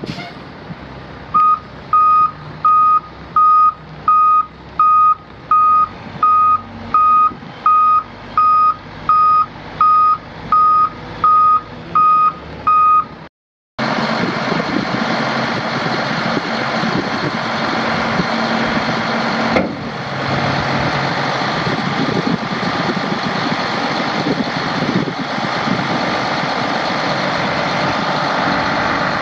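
A dump truck's backup alarm beeping steadily, about one and a half beeps a second, over its idling diesel engine. After a sudden break, the truck's Mack six-cylinder diesel engine runs loudly and steadily.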